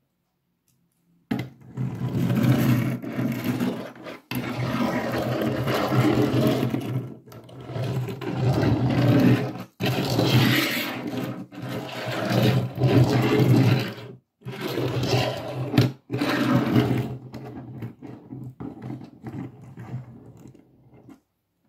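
Loud scraping and rubbing close to the microphone, with a low rumble under it. It comes in long stretches that stop dead several times.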